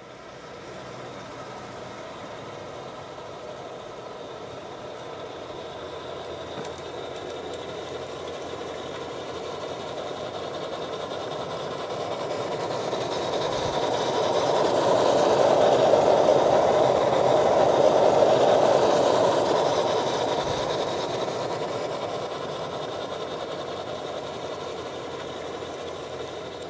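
Accucraft NGG16 Garratt live-steam garden-scale locomotive and its train running past on the track. The sound grows louder as the locomotive approaches, peaks a little past the middle as it passes, then fades as the cars roll by.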